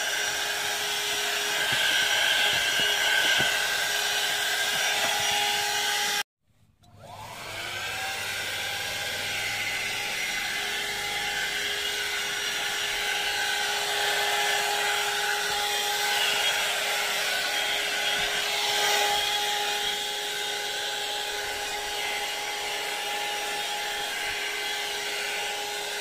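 Bergmann Stunner 150 W handheld car vacuum cleaner running, a steady motor whine with suction hiss as its narrow nozzle is drawn over the door sill and seat. The sound cuts out briefly about six seconds in, then winds back up to speed.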